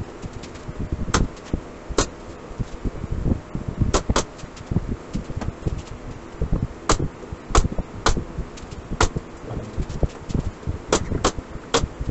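Workshop handling noise: about a dozen sharp wooden clicks and knocks at irregular intervals, with many softer low thumps over a steady low rumble.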